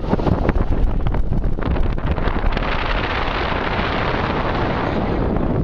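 Wind buffeting the microphone over a car's steady low road rumble, with a rushing hiss that swells about halfway through and eases off near the end.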